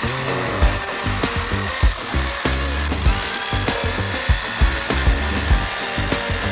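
Corded jigsaw cutting through thick hardwood hull planking, finishing a round hole that was started with a ring of drilled holes. Background music with a steady beat plays over it.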